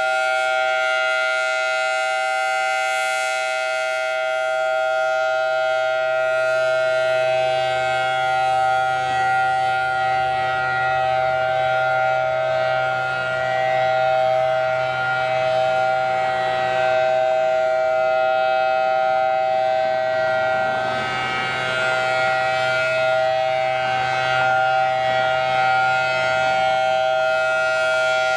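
Federal Signal Thunderbolt 1000T civil defense siren sounding a loud, held, steady tone during a test, its loudness swelling and easing slightly.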